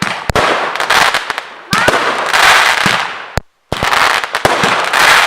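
Consumer firework battery (a multi-calibre cake of 84 shots) firing: a run of sharp launch thumps, each followed by about a second of rushing, crackling burst noise. The sound cuts out briefly about three and a half seconds in.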